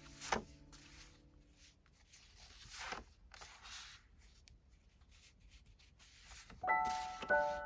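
Close handling sounds: a sharp click, then soft rustling and swishing of things being moved about, with a few small ticks. Piano music comes in near the end.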